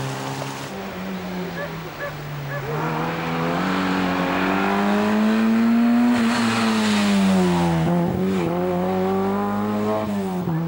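Small rally car engine running hard on a stage, its pitch climbing under acceleration, falling off, dipping sharply about eight seconds in, then climbing again.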